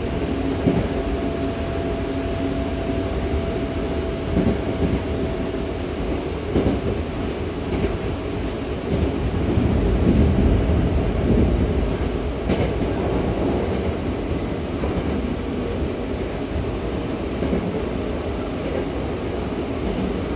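Hankyu commuter train running, heard from inside the car: a steady rumble of wheels on the rails with a few knocks over rail joints. A faint hum fades out in the first few seconds, and the rumble swells briefly midway.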